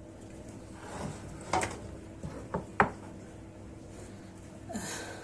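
Kitchenware being handled: four sharp knocks and clinks within the first three seconds, then a brief rustling scrape near the end.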